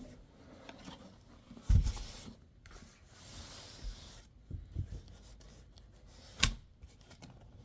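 Handling and opening a box of craft supplies: a thump a little under two seconds in, a stretch of rustling, a few small knocks and a sharp click near the end.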